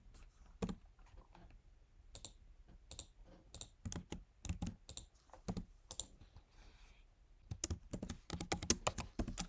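Computer keyboard keys pressed in scattered, irregular keystrokes, with a quicker run of presses near the end.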